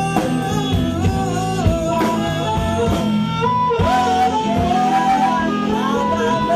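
Electric blues band playing live, a woman singing with sliding, bending notes over electric guitar and a drum kit.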